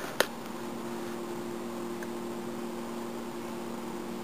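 Casablanca Lady Delta ceiling fan switched to low speed: a click near the start, then the motor sets in with a steady hum over a soft rush of air from the four blades.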